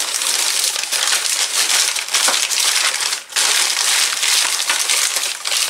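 Packaging and small plastic parts bags crinkling and rustling steadily as they are handled, with a short break about three seconds in.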